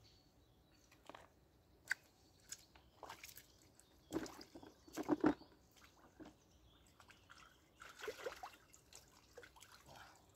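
Water splashing and dripping in short bursts, with light knocks and handling noises, as a freshly caught rudd is handled at a bucket and the water's edge. The loudest splashing comes about four to five and a half seconds in, with more around eight seconds in.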